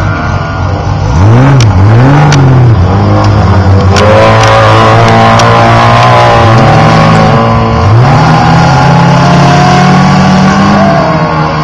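Off-road race truck engine revved in a few quick blips, then held at a steady raised speed with smaller rises and dips in revs.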